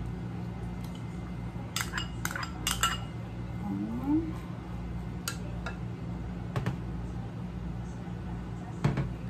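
Clinks and knocks of a serving spoon and a small bowl against a mixing bowl while ground pork filling is mixed. A quick run of clinks comes about two seconds in, then single knocks every second or two, over a steady low hum.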